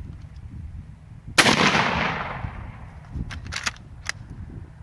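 A single semi-automatic 12-gauge shotgun shot about a second and a half in, echoing as it dies away, followed by a few sharp metallic clicks of the shotgun's action being worked.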